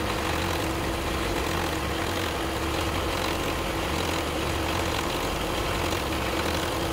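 Isuzu MU-X's 4JJ1 four-cylinder turbo-diesel idling steadily, running a little rough as intake cleaner spray is fed into its intake.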